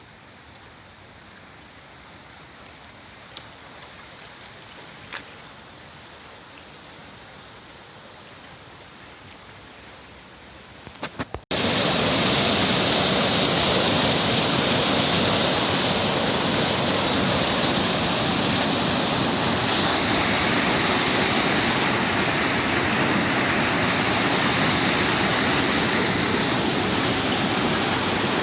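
Faint outdoor hiss with a couple of small clicks, then, about eleven seconds in, a sudden jump to the loud, steady rush of a fast-flowing stream.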